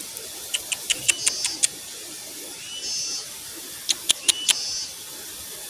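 Clusters of small sharp ticks, starting about half a second in and again near four seconds. Between them come short, high, buzzing chirps about every second and a half.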